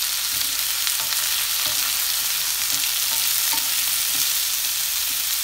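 Diced potatoes frying in a little oil with onion, garlic and dried red chillies, a steady sizzle, with a few faint knocks as the pan is stirred.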